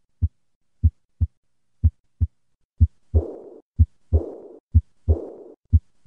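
Recorded heart sounds of aortic regurgitation: a lub-dub (first and second heart sounds) about once a second. From about three seconds in, each second heart sound is followed at once by a high-pitched diastolic murmur that fades away over about half a second.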